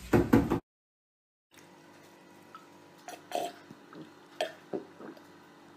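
Someone drinking from a plastic water bottle, with several short gulps and swallows spaced a second or so apart. It opens with a brief loud sound that cuts off abruptly.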